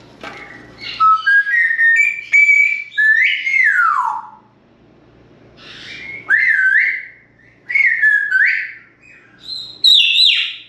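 African grey parrot whistling in several phrases. The first is a run of notes stepping up in pitch, ending in a long downward slide about four seconds in. After a short pause come more rising-and-dipping whistles, and a high, falling whistle near the end.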